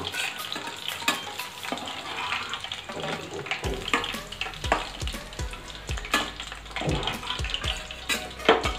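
Chicken pieces deep-frying in hot oil in a stainless steel kadai, the oil sizzling and bubbling steadily. Repeated clinks and scrapes of a metal spatula against the pan as the fried pieces are lifted out.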